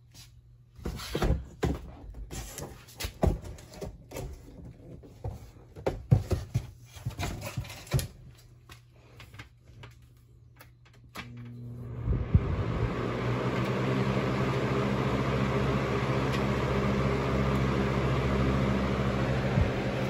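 A series of knocks and clatter from handling, then a Lasko Power Plus box fan switched on about 11 seconds in. Its motor starts with a low hum, and the blades spin up over a couple of seconds into a steady rush of air.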